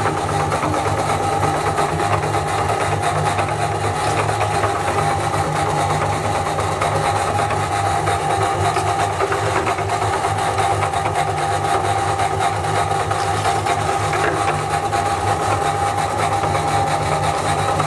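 Cast-iron meat grinder crushing biscuits into powder, a steady grinding sound with fine crackle over a constant hum.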